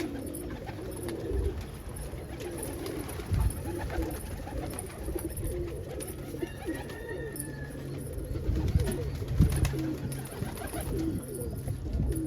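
Several domestic pigeons cooing in a loft, low rolling coos overlapping throughout, with a few dull low thumps, the loudest about nine and a half seconds in.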